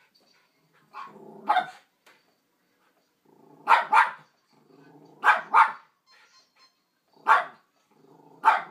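Poodle growling low and barking at the television: short barks, mostly in pairs, each after a rumbling growl, five times over.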